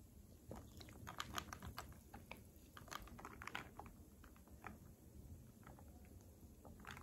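Faint sipping and swallowing of a fizzy soda from a glass, with many soft, irregular small clicks from the mouth and glass.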